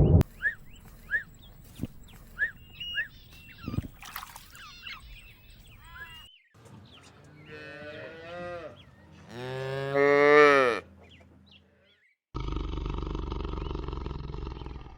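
A cow mooing: one long call that rises and falls, loudest about ten seconds in. It is preceded by a series of short high chirps and followed by a steady rushing noise near the end.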